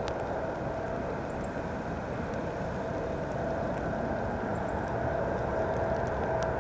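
Jet engines of a Boeing 747-8 freighter on final approach: a steady rushing hum with a held mid-pitched tone, slowly growing louder as the aircraft nears.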